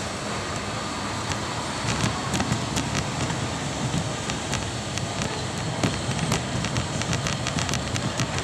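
Shopping trolley rolling and rattling as it is pushed along the store floor, heard from a phone riding inside the basket, with many irregular sharp clicks and knocks from about two seconds in.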